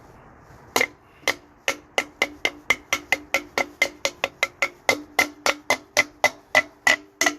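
Hammer tapping a Fel-Pro installer tool to drive a thin rear main seal repair sleeve onto the crankshaft of a 302 small-block Ford V8. It strikes lightly and quickly, about four blows a second, with a metallic ring, starting about a second in.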